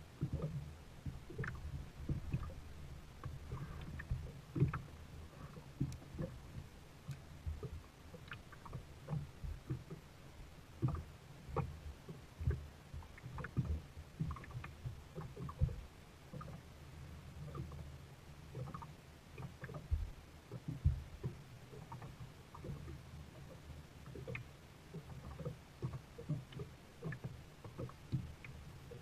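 Sun Dolphin kayak on the water: irregular knocks and small splashes of the paddle and water against the plastic hull, over a low steady rumble.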